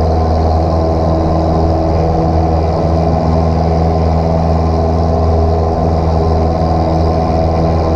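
Light single-engine airplane's piston engine and propeller running at a steady power setting, heard as an even drone inside the cabin.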